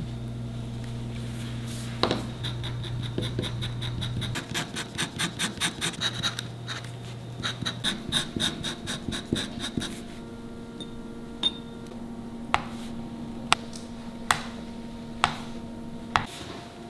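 Leatherworking at the bench: a run of quick, even rubbing strokes, about four or five a second, under a low hum, then a series of sharp taps about once a second.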